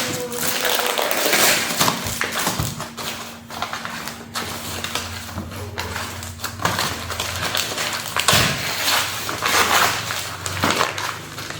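Rustling and crinkling of grocery bags and packaging being handled, with a few light knocks and a steady low hum behind.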